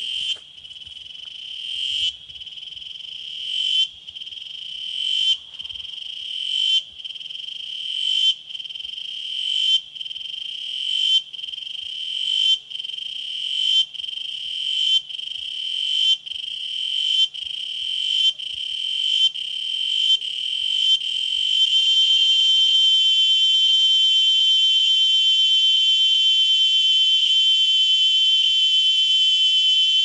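Cicadas calling: a high, ringing buzz that swells and cuts off sharply, over and over. The phrases come about every second and a half at first and grow quicker. About twenty seconds in they merge into one continuous loud drone.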